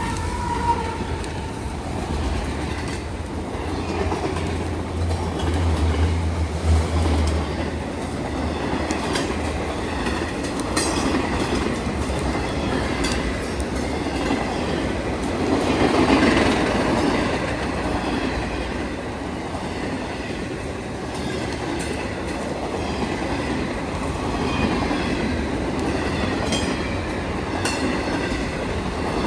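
Freight train rolling past, its cars clattering steadily over the rails. A low hum sits under it for the first several seconds.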